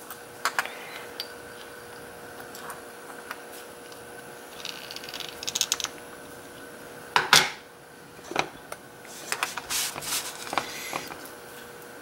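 Small metallic clicks and a brief scrape as the key-turned plug of a Corbin mortise cylinder lock is slid out of its housing behind a follower, with a sharper click about seven seconds in and more light ticks of the loose plug and key being handled near the end.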